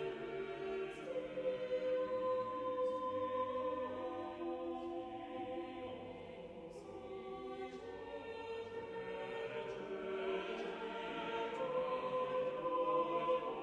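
Choral music: voices holding long, slow chords, growing quieter around the middle and swelling again near the end.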